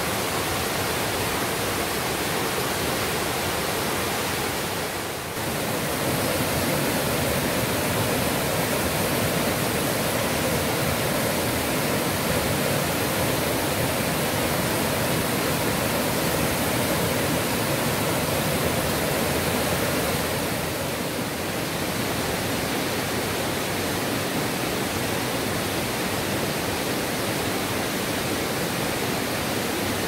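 Namtok Phlio's waterfall stream running high and fast over boulders after heavy flow: a loud, steady rush of water that dips briefly twice.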